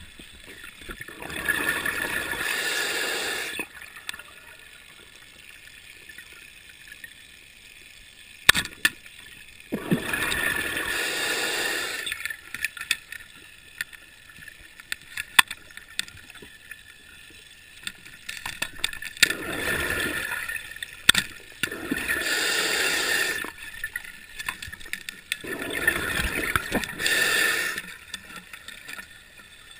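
Underwater breathing noise from a diver: about five bursts of bubbling, each around two seconds long, come at irregular intervals. A few sharp clicks fall between them.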